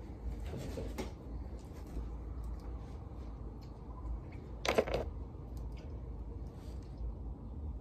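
Small makeup items being handled, with brief rustles near the start and one short clatter about five seconds in, over a steady low room hum.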